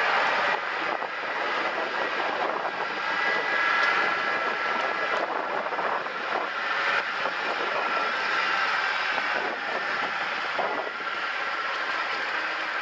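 Jeep driving along a dirt trail: a steady rush of tyre and road noise with the vehicle running, and a faint steady whine on top.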